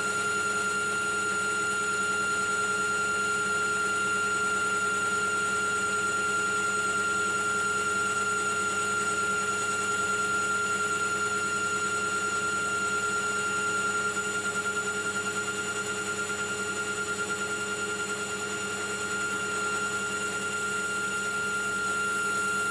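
AL960B metal lathe running steadily at constant speed, a steady high whine over a lower hum from its drive.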